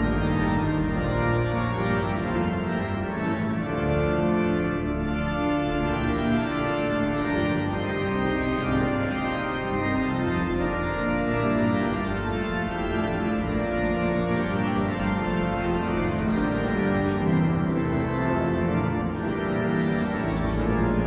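Organ music: slow, sustained chords held over deep bass notes, the chords changing every second or so.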